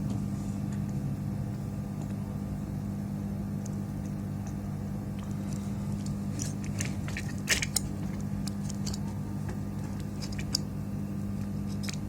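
Small clicks and taps of tools and parts being handled on a repair bench, scattered and loudest about seven and a half seconds in, over a steady low electrical hum.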